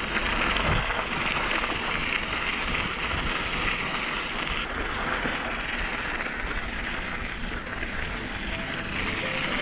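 Mountain bike's knobby tyres rolling over loose volcanic cinder, with wind on the microphone: a steady hiss and rumble.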